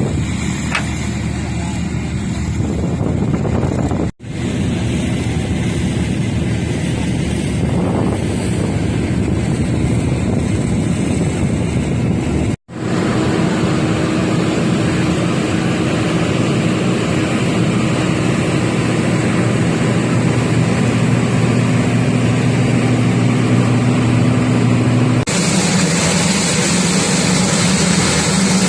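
Turboprop aircraft's engine and propeller running with a steady drone. It is broken twice by brief drop-outs, and its tone shifts abruptly near the end.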